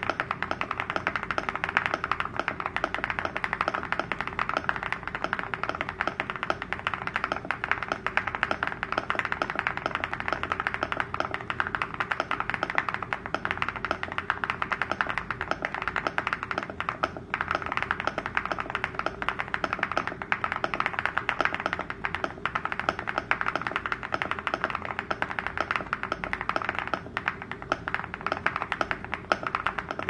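Fast, continuous typing on a mechanical keyboard fitted with KeyGeek Blue Cheese switches: a dense, unbroken stream of keystroke clacks.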